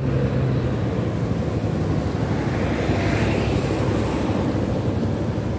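Road noise from a vehicle driving on a wet street: a steady low engine and road rumble, with a hiss that swells and fades about three seconds in.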